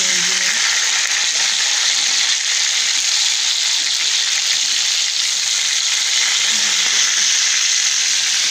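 Chicken leg pieces frying in shallow oil in a pan, a steady, loud sizzle, while they are turned over with tongs.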